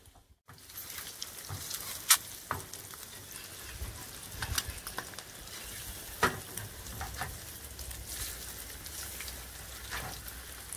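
Eggs sizzling and crackling in a nonstick frying pan on a portable butane stove, with a spatula scraping the pan as the eggs are turned. Sharp clicks from the spatula against the pan stand out about two and six seconds in.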